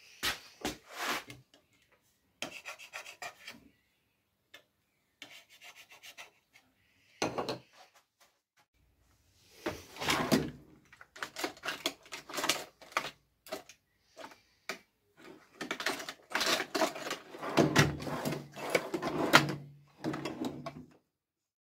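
Steel tool chest drawers being slid open and shut, with hand tools clattering as they are rummaged through. Before that come a few short scrapes and clicks.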